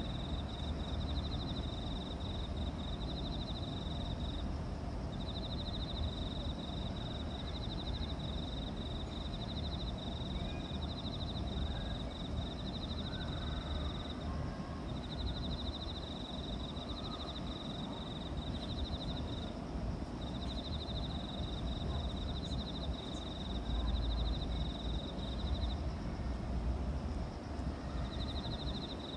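An insect chirping in short, high, pulsed trills, repeated about once a second with a few longer pauses, over a steady low rumble.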